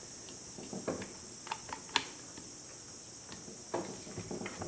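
Small clicks and light knocks of metal parts and a wooden rifle stock being handled, as the tight magazine assembly of a Beaumont 1871/88 rifle is pushed loose by hand, over a steady high-pitched hiss.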